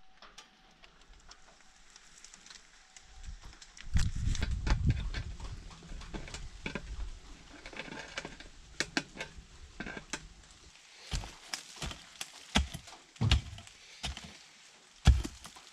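Light clinks and rustles of galvanized stovepipe sections being handled, then a mattock chopping into soil in a run of dull thuds, about five strikes in the last five seconds. A low rumbling noise about four seconds in is the loudest sound.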